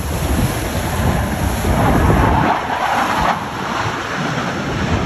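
Jet engine noise from a formation of four Boeing F/A-18 Super Hornets flying past, swelling about two seconds in and easing off a little over a second later, mixed with wind on the microphone and surf.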